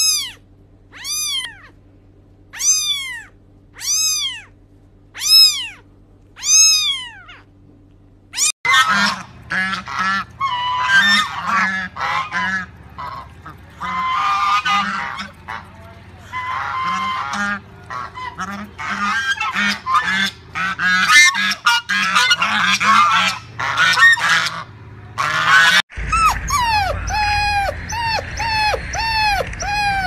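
A cat meows six times, about once every second and a half. Then comes a long, dense run of honking calls from a flock of waterfowl. Near the end there is a dog's short, falling whimpers.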